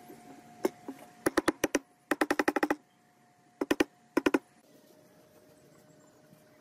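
A hammer tapping lightly on a clamped wood block in short quick bursts, the fastest at about a dozen taps a second. The tapping stops about two-thirds of the way through, leaving a faint steady hum.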